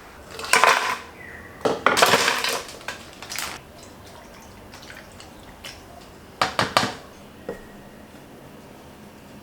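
Kitchen dishes and metal utensils clattering and clinking in several short bursts of knocks and scrapes.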